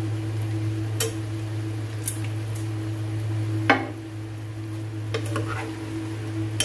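A cooking utensil stirring chicken-feet adobo in a pan, with about five sharp knocks against the pan, the loudest about three and a half seconds in. A steady low hum runs underneath.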